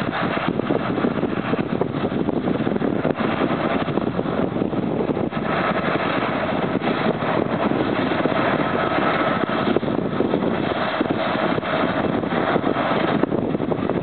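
Tractors running in a hay field: the John Deere 6420 pulling a two-rotor hay rake closes in, with the John Deere 7530 and its round baler working further off. A faint whine comes in about five seconds in and drops away near the end.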